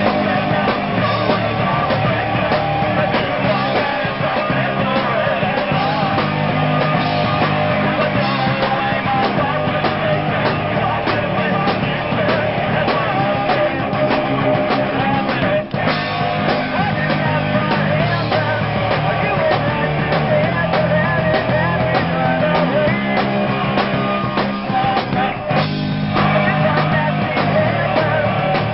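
A three-piece punk rock band playing live: electric guitar, bass guitar and drum kit, with a lead vocal sung over it.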